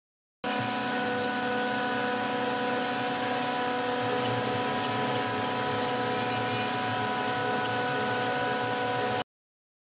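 CNC router spindle running steadily with a constant whine as a fine tapered carving bit cuts into a wooden blank. The sound starts abruptly about half a second in and cuts off abruptly near the end.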